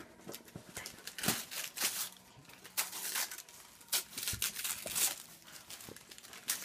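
Gift wrapping paper and tissue paper crinkling and tearing in a string of short bursts as presents are unwrapped.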